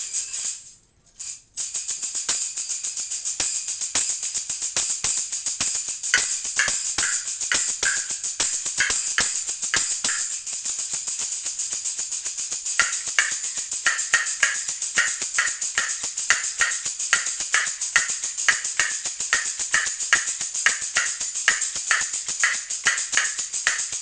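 Latin Percussion Percusso tambourine with 12 pairs of steel jingles played in a steady rhythmic groove, a continuous bright jingle shimmer driven by quick repeated strokes. It starts about a second and a half in.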